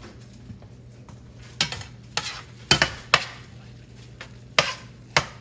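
A utensil stirring thickened vegetables in a cooking pan, clinking and knocking against the pan about six times at an irregular pace.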